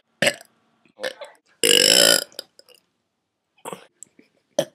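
A woman burping on purpose: one long, loud burp about a second and a half in, with a few short sounds before and after it.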